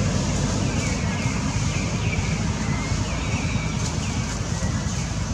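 Wind buffeting the microphone, a steady low rumble. Behind it, short high falling chirps repeat about once or twice a second.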